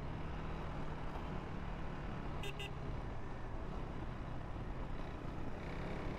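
Sport motorcycle engine running at a steady cruise, with wind and road noise on the rider's helmet camera microphone. Two short sharp chirps about two and a half seconds in.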